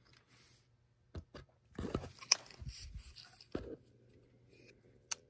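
Handling noise from a blower motor assembly with plastic fan wheels being turned over in the hands: scattered clicks, light knocks and rustles, the sharpest click about two seconds in.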